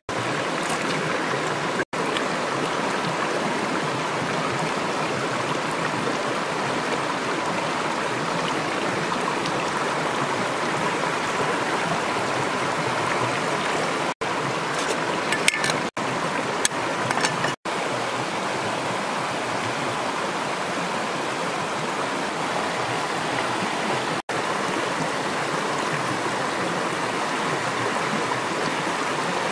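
Steady rush of a flowing stream, an even wash of water noise that breaks off for an instant several times.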